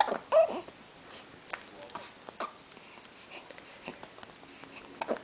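Three-week-old baby hiccupping: a sharp hic with a short squeaky little voice sound at the start, and another hic near the end.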